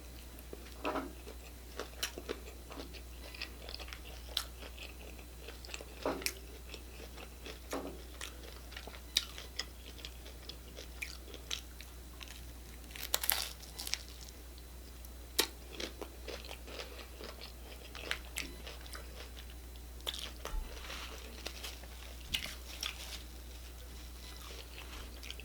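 Close-up eating of crunchy hard-shell Taco Bell tacos: irregular sharp crunches of the shells between bites and chewing, with the loudest crunches about 13 and 15 seconds in. A low steady electrical hum lies underneath.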